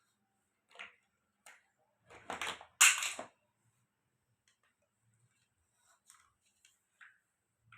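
Small plastic toy kitchen pieces being handled: a few light knocks, then a louder clatter of pieces about two to three seconds in, and a couple of faint ticks near the end.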